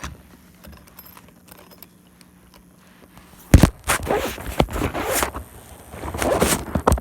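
A soldering iron kit being opened and handled: a few faint clicks, then about halfway in a sudden knock followed by loud bursts of rustling and scraping.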